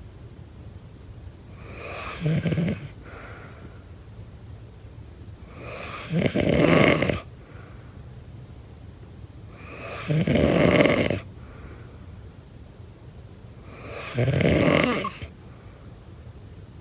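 A person snoring: four loud rough snores about four seconds apart, each lasting about a second, with quieter breathing between them.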